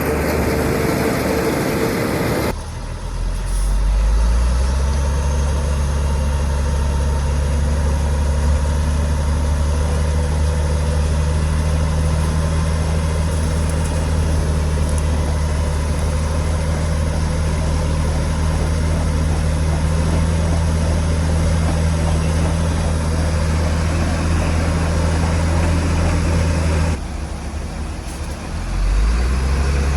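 Heavy diesel engine of an earthmoving machine running under load. Its low note climbs a few seconds in and then holds steady. Near the end it breaks off abruptly and then climbs again.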